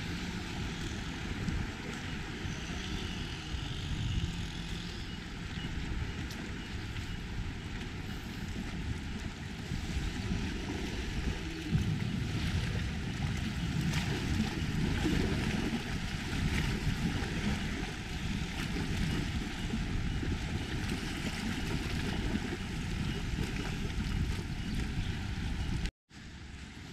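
Wind rumbling on the microphone over the wash of the sea against rocks, with the sound cutting out for a moment near the end.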